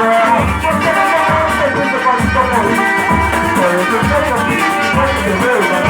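Band music with percussion: a deep drum beat about every two-thirds of a second under shakers and melodic instruments.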